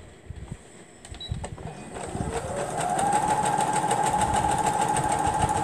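Electric sewing machine starting up about two seconds in and then stitching steadily at speed: a rising motor whine that levels off, with fast, even needle strokes. It is sewing quilt pieces.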